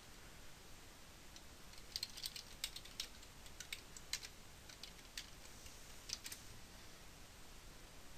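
Faint computer keyboard typing. A quick run of keystrokes starts about two seconds in, and a few scattered keystrokes follow up to about six seconds.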